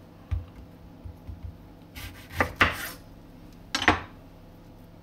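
A chef's knife and a lemon handled on a wooden cutting board while the lemon is cut: a few light knocks, a short rough scraping cut, and a sharp clack of the knife on the board near the end, which is the loudest sound.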